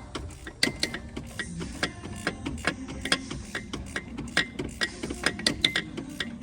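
Hand ratchet wrench clicking in quick, uneven runs while tightening the alternator mounting bolts.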